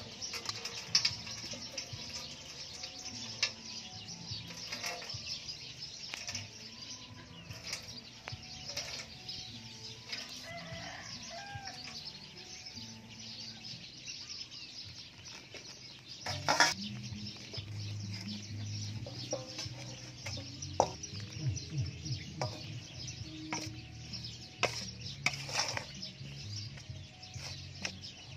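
Chickens clucking, with scattered sharp clicks and knocks of a metal mesh sieve and spoon against an aluminium bowl; the loudest knock comes a little past halfway.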